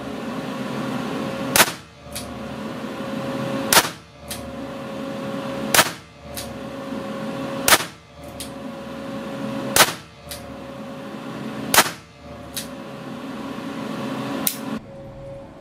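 Weihrauch HW5 T .22 rimfire revolver fired six times, about two seconds apart, each shot followed by a fainter click. The shots sound over the steady hum of the range's extractor fan, which drops away near the end.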